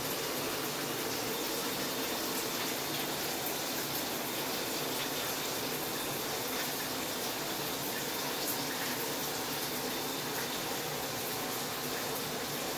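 Handheld shower head spraying water against a glass shower door and tiled wall: a steady hiss of running water.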